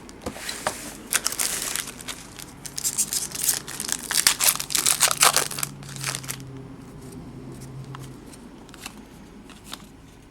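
Crinkling and tearing of a trading-card box's plastic wrapper or a card pack's foil wrapper as it is ripped open, busy for about six seconds and then dying down to a few faint rustles.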